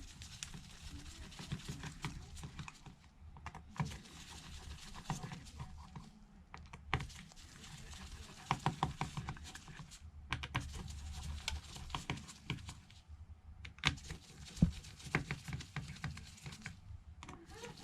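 Clusters of small, sharp clicks and taps from a hand precision Phillips screwdriver working out the tiny screws of a Samsung Galaxy Note 5.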